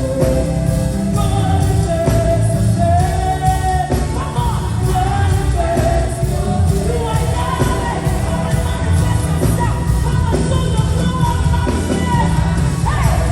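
Live worship music: singing voices holding long, gliding notes over a full band with a heavy low end.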